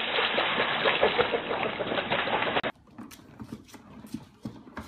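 Dog splashing into a swimming pool and paddling, with churning water noise that cuts off about two and a half seconds in. Then faint scratches and light clicks as a puppy scrabbles on a plastic spinning toy.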